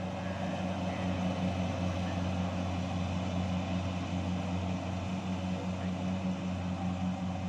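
Kubota DC-70 combine harvester's diesel engine running steadily under load while it harvests rice in soft mud where it has sunk at the rear.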